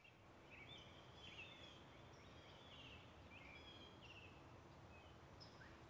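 Faint outdoor ambience of small birds chirping: many short, quick chirps and falling trills over a low, even background hiss.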